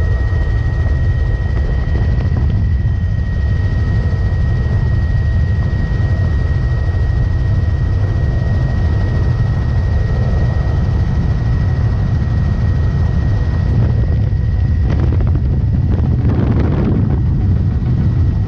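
Helicopter in flight, heard from inside a doors-off cabin: a loud, steady rumble of rotor and engine mixed with wind buffeting the microphone, with a thin steady high whine running through it.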